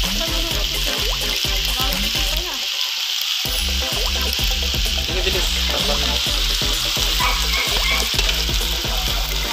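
Cabbage and carrots sizzling steadily as they are stir-fried in a hot wok, with the repeated scrape and clatter of a spatula stirring them against the pan.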